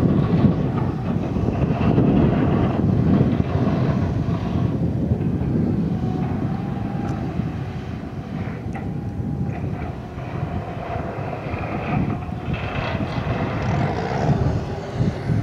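Skagit BU-199 slackline yarder's diesel engine running, a steady low drone heard from across the valley.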